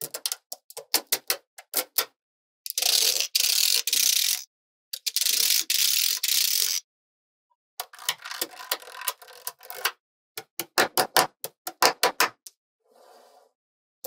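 Small magnetic balls clicking against each other as they are handled. There are two stretches of fast continuous rattling, each about two seconds long, as a layer of balls is peeled up and rolled over, then a series of separate sharp clicks as the balls snap back into place.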